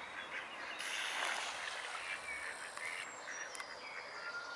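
Outdoor pond ambience: small birds chirping and whistling over a steady background hiss, which thickens from about one to three seconds in.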